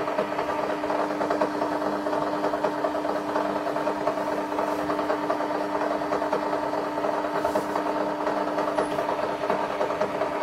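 Sharp XE-A203 cash register's built-in printer running continuously, feeding paper and printing line after line of its electronic journal report: a steady hum with a fast, even chatter.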